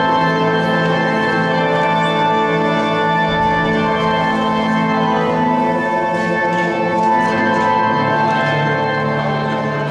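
Organ music playing slow, sustained chords.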